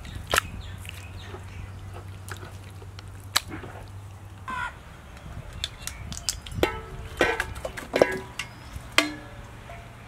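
Metal cookware clanking: a steel bowl and an aluminium pot knocking together several times with short metallic ringing as cut pieces of raw beef tongue are tipped from the bowl into the pot. A couple of single sharp knocks come in the first half.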